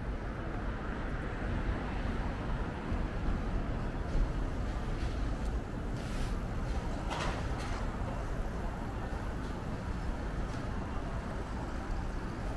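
City street traffic noise: a steady low rumble with a wash of hiss, and a short, sharper noise about seven seconds in.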